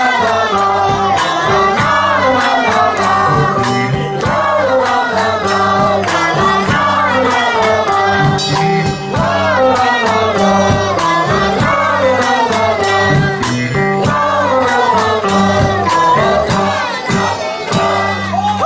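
Live band music with singing: a wordless vocal melody that glides up and down over guitar and a steady beat of percussion hits.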